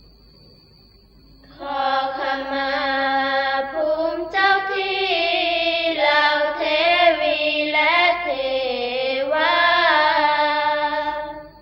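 Sorapanya chant-song: a sustained, wavering melodic vocal line, a held melisma with no clear words, coming in about a second and a half in, pausing briefly near four seconds, and ending just before the close. A faint steady high-pitched whine and hum sit under it at the start and end.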